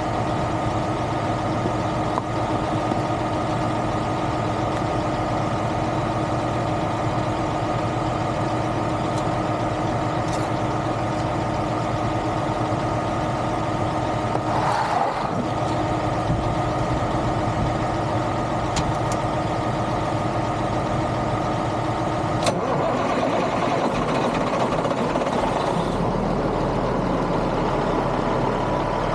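Diesel engine of a Freightliner semi-truck idling steadily. A sharp click comes about 22 seconds in, after which the engine sound becomes fuller.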